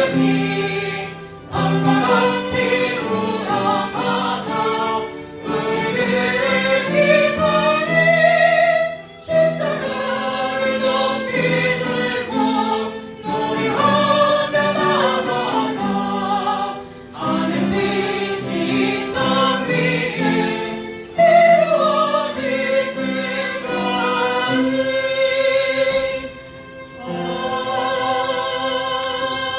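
A choir singing a song in phrases a few seconds long, with short breaks between the phrases.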